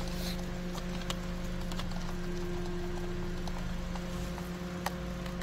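Scattered light clicks and taps of a Phillips screwdriver and fingers on the plastic cruise control switch and steering-wheel hub, with one sharper tick near the end, over a steady low hum.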